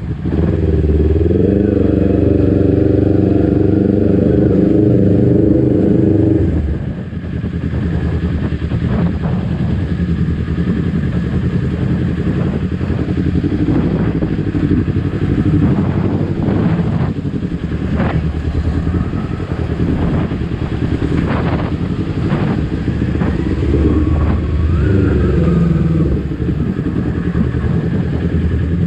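Kawasaki Ninja 250 FI parallel-twin engine running as the bike rides along, held on the throttle for about the first six seconds. It then eases off to a lower, quieter run with scattered clatter and picks up again near the end.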